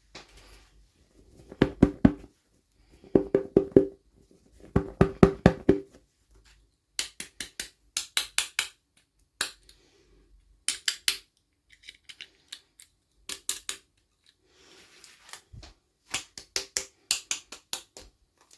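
Toy packaging being handled: repeated short bursts of rapid clicks and crackles, like plastic being pressed, with pauses between them. The first few bursts are fuller and more hollow-sounding, and the later ones sharper and brighter.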